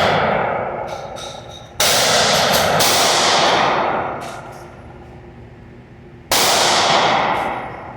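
9mm Diamondback AR-9 pistol fired one-handed: three shots, two about a second apart starting about 2 s in and one more about 6 s in. Each crack is followed by a long ringing echo that fades over a second or more.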